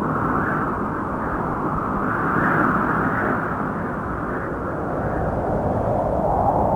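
Wind blowing: a steady, low rushing noise that swells and eases in gusts.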